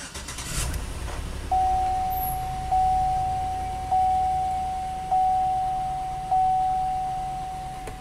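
A 2004 Chevy Avalanche's 5.3-litre V8 starts from cold within the first second and settles into a low, shaky idle while misfiring. From about a second and a half in, a dashboard warning chime dings about every 1.2 seconds, five times, louder than the engine.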